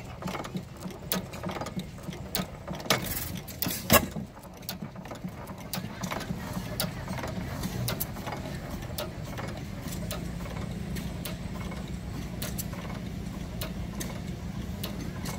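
Antique stationary gas engines running: a steady low running sound with scattered sharp clicks and knocks, two of them loud about three and four seconds in.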